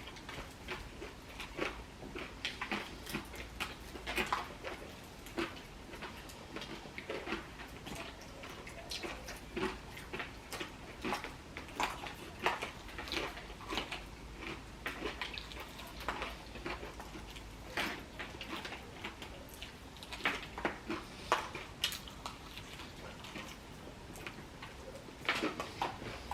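Fried chicken being eaten fast: irregular chewing and mouth sounds with small clicks and taps of handling food and plates.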